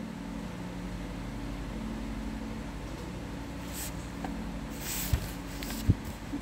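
Quiet room tone with a low steady hum. Faint rustling comes in the second half, and two soft knocks sound near the end.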